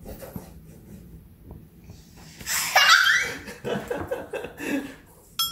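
A one-year-old baby squeals and laughs: a loud, high cry with falling pitch about two and a half seconds in, then a few short giggling sounds.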